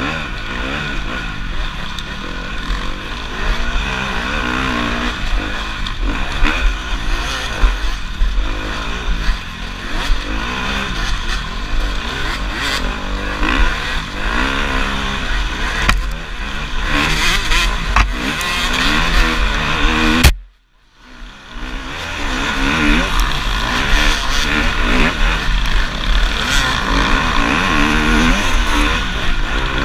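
Dirt bike engine revving up and down continuously as the rider climbs through the gears and backs off over rough trail, with other bikes running close ahead. About two-thirds of the way through there is a loud click, then the sound cuts out almost completely for about a second before the engine returns.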